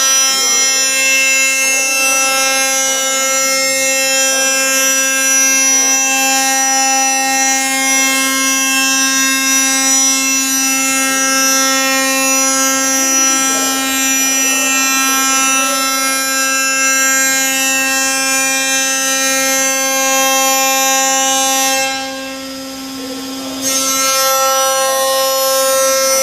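CNC 5-axis machining center's spindle and cutter milling a hollow extruded train-door profile: a loud, steady whine with many evenly spaced overtones. Near the end the sound drops away for a second or two, then resumes.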